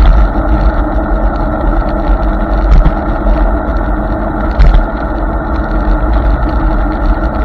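Riding noise from a Hiboy S2 Pro electric scooter on the move: a steady rush of wind and tyre noise with deep wind rumble on the microphone, and two short knocks, about three seconds and four and a half seconds in.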